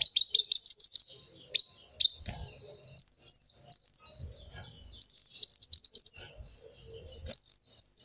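Van Hasselt's sunbird (kolibri wulung) singing in a high voice: a fast run of sharp chips, then swooping up-and-down whistled notes broken by a quick trill.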